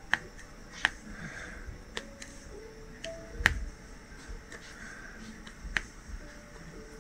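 Diamond-painting drill pen tapping drills onto the canvas: several sharp clicks at irregular intervals, the loudest about halfway through. Soft background music plays underneath.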